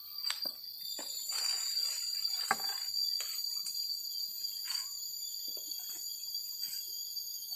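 Steady high-pitched chorus of crickets and other night insects. Scattered short rustles and snaps sound over it, about a second apart in the first half and sparser later, the loudest about two and a half seconds in.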